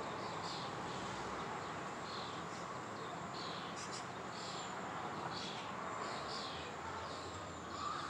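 Outdoor ambience: short high-pitched chirps repeating irregularly, about once a second, over a steady background hiss.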